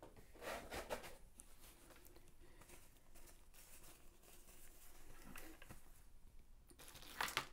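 Faint handling sounds: light rustling and a few soft taps as small objects are picked up and moved about, with a sharper tap near the end.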